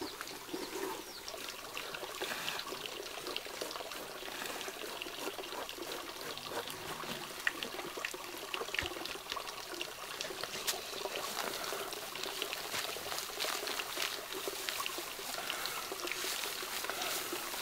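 Rice grains pouring and rustling as they are shaken and tipped on a woven bamboo tray, spilling onto a plastic sheet: a steady hiss made of many small grain ticks.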